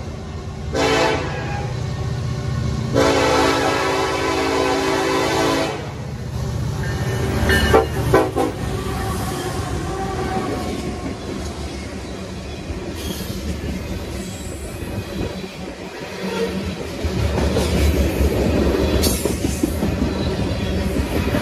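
Freight train passing close by: the GE diesel locomotive sounds its air horn in three blasts, a short one, a long one of about three seconds and a last short one that drops in pitch as it goes by. Then the engine rumble gives way to tank cars rolling past with wheel clatter and some wheel squeal.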